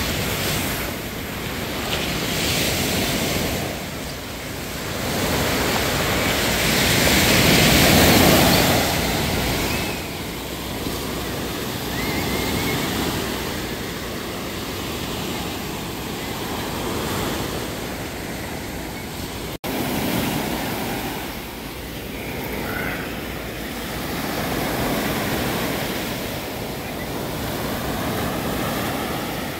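Ocean surf: waves breaking and washing up the beach in slow swells that rise and ease every few seconds, with some wind on the microphone.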